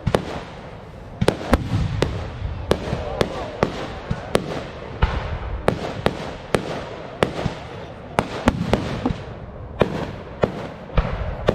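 Fireworks display: aerial shells bursting in quick, irregular succession, sharp bangs about two or three a second over a continuous low rumble.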